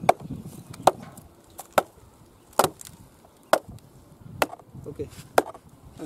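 A thick length of green bamboo used as a mallet, striking a thin bamboo peg to drive it into stacked banana-tree trunks: seven even, sharp knocks a little under a second apart.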